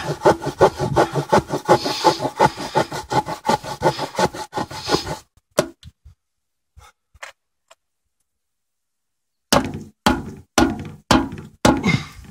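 The saw-back spine of a Glock knife sawing with quick back-and-forth strokes, about five a second. It stops for a few seconds of near silence partway through, then the strokes resume more unevenly near the end.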